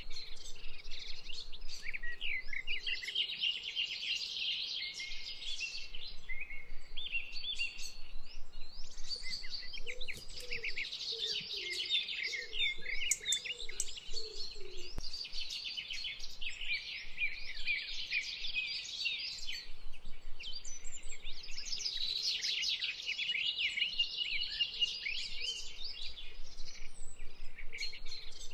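Many songbirds singing at once, a dense chorus of quick chirps and trills, with a lower call wavering and falling in pitch for a few seconds near the middle.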